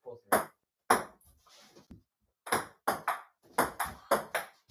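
Table tennis ball clicking off paddles and a small table. Two single hits come first, then a quick rally of about three hits a second.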